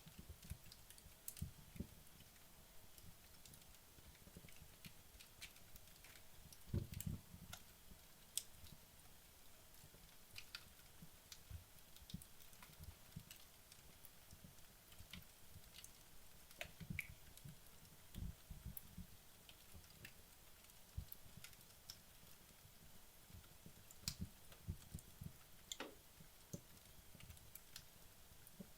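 Wood logs burning in a fireplace: faint, scattered crackles and small pops, with a few soft low thumps, the loudest about seven seconds in.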